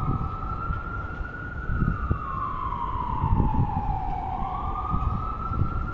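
Emergency vehicle siren sounding a slow wail, its pitch rising and falling about every four seconds.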